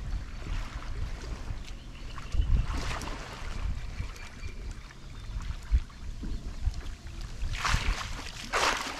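Stand-up paddleboard paddle strokes splashing in lake water, with two louder splashes near the end, over wind rumbling on the microphone.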